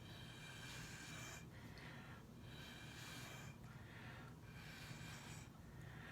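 Faint, repeated puffs of air blown through a drinking straw onto wet acrylic paint to spread it out, about one puff a second, each with a slight whistle.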